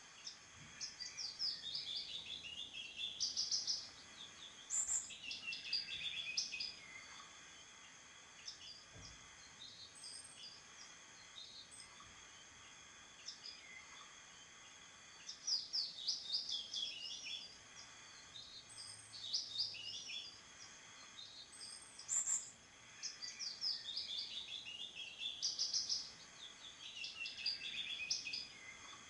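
A songbird singing: repeated phrases of quick notes that fall in pitch, each phrase two to three seconds long, with pauses between.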